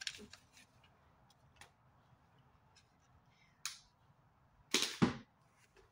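A paper banknote being handled and folded: soft scattered rustles and light clicks, with two louder short rustles in the second half.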